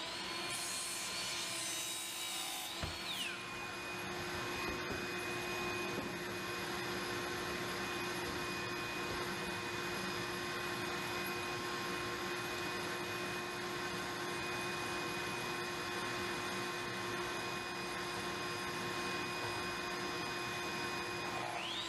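Electric woodworking power tool cutting lumber. The motor whine is high and unloaded for about three seconds, then drops to a lower steady pitch as it bogs under a long continuous cut. Right at the end it speeds back up as the cut finishes.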